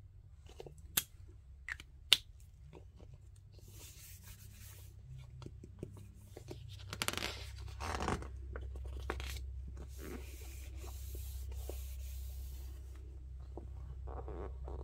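Paper handling on a paperback activity book. Two sharp clicks near the start, as the felt-tip marker is capped and set down. Then the paper rustles and crinkles as a page is turned over, loudest about halfway through, followed by a few seconds of soft rubbing of a hand over the paper.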